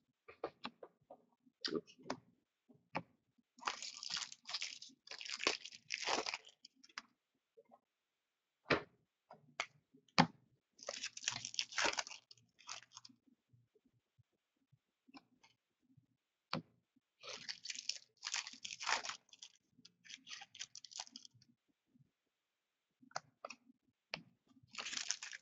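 Trading card pack wrappers being torn open and crinkled in several bursts, with scattered clicks and taps of cards being handled.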